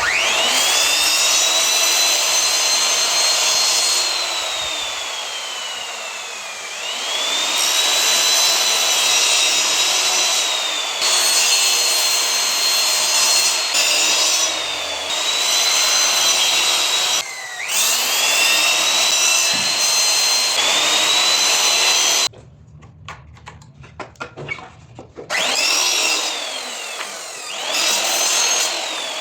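Electric power tool working wood. Its high motor whine climbs quickly as it spins up, holds, and drops slowly in pitch once. This happens several times, with a few seconds of quieter clicking and scraping late on.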